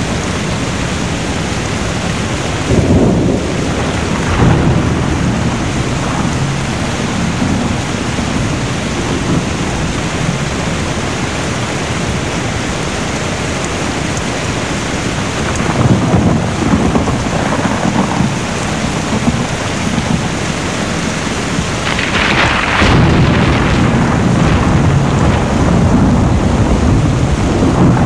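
Steady heavy rain with rolling rumbles of thunder that swell several times, about three seconds in, around sixteen seconds, and loudest a little after twenty-two seconds.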